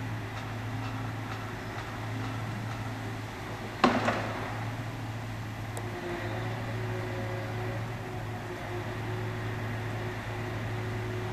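Engine of a truck-mounted tree-felling crane running steadily, with one sharp crack about four seconds in while its grapple saw works a poplar limb. A faint steady whine joins after about six seconds.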